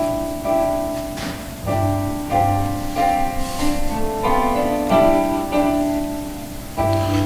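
Live pit orchestra playing the slow instrumental introduction to a song, held notes and chords changing about once a second.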